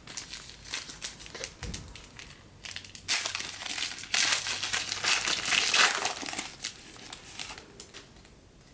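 Foil wrapper of a 2015 Panini Diamond Kings card pack crinkling as it is opened and handled. The dense crackle is loudest from about three to six and a half seconds in.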